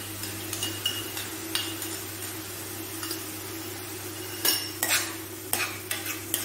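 Chopped onions sizzling in a stainless-steel kadai as a steel ladle scrapes and clinks against the pan, a few knocks early on and a quick run of clinks in the last two seconds as ginger-garlic paste is stirred through the frying onions.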